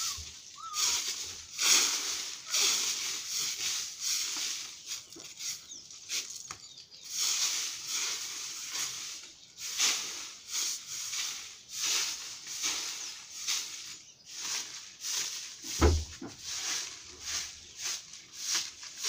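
Plastic broom sweeping dry leaves across hard ground in repeated brushing strokes, about one a second. There is a single dull thump about three-quarters of the way through.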